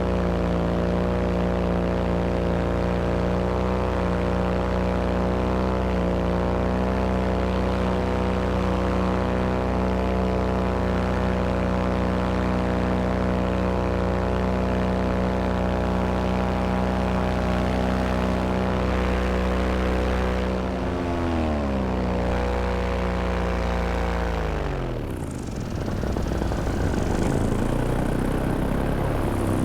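Moster 185 paramotor's single-cylinder two-stroke engine and propeller running steadily at cruise power. About twenty seconds in, the throttle comes off and the engine pitch falls away over a few seconds, leaving mostly wind rushing past.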